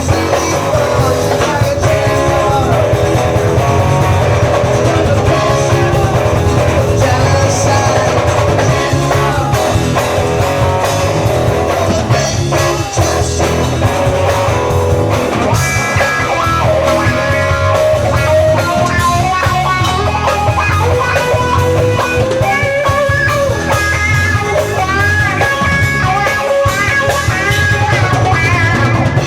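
A rock band playing live, with a guitar playing a melodic lead line over the band.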